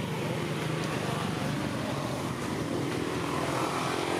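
A motor engine running steadily with a low drone.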